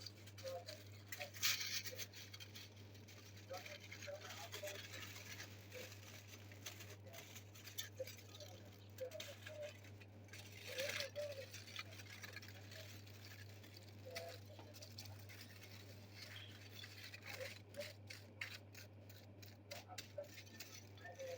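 Faint kitchen handling sounds, light clicks and rattles from a crepe being wrapped, over a steady low hum, with a quick run of ticks about three-quarters of the way through.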